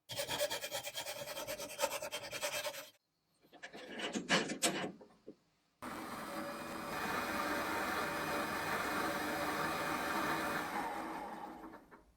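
Rapid scraping or rasping strokes for about three seconds, a shorter burst of scraping, then a long steady abrasive rasp that fades out near the end. The segments are cut apart by abrupt silences.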